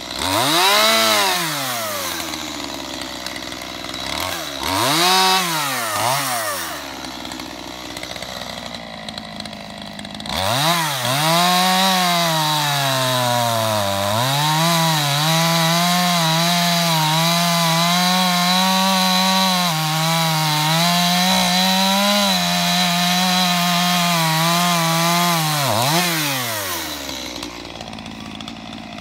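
Two-stroke Stihl chainsaw blipped up to speed twice briefly, then held at full throttle through a long cut in a log, its pitch wavering under load, before dropping back to idle near the end as the cut finishes.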